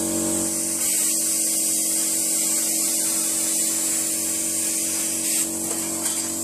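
Stahlwerk CT 520 P plasma cutter's hand torch cutting sheet steel along a straight-edge guide: a steady hiss of arc and air that starts about a second in and cuts off about five and a half seconds in, over a constant low hum.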